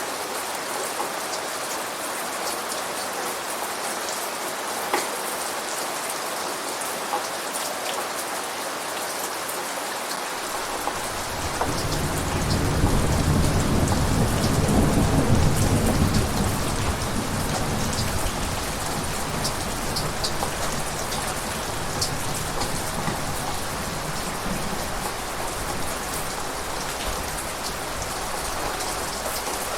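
Steady rain pattering, with a roll of thunder rumbling in about a third of the way through, loudest a few seconds later, then fading back to rain.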